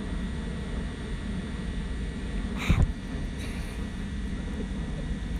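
A steady low outdoor rumble, broken about halfway by one short, loud blast of breath from a woman blowing a mosquito out of her nose.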